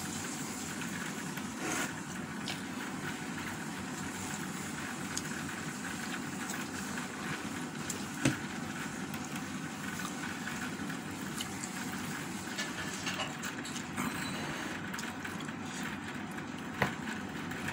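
Eating by hand from a plate: a few sharp clicks and taps of fingers and food against the plate, the loudest about eight seconds in, over a steady rushing background noise.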